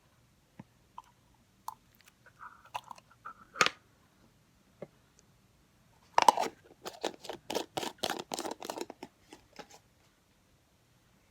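Stiff slime being squeezed and poked by hand, giving a few scattered sharp clicks and then a dense run of crackly, crunching clicks lasting about three seconds from about six seconds in.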